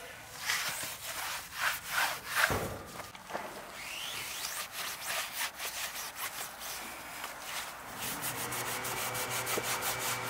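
Microfibre towel rubbing over the plastic door sill and scuff plate of a Hyundai Santa Fe, wiping off interior cleaner in quick, uneven strokes. A faint low hum comes in about eight seconds in.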